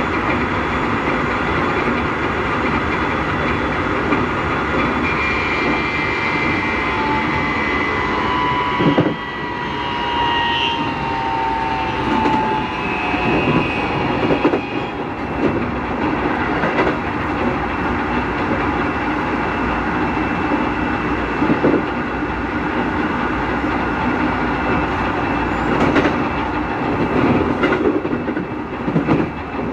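Keikyu 1000-series train car under way, heard from inside: the Mitsubishi IGBT VVVF inverter and traction motors whine in several thin tones, a few sliding slightly down in pitch early on, over running noise with scattered wheel knocks on rail joints. The motor noise is unusually loud, which the uploader takes for Mitsubishi motors transferred from formation 1105.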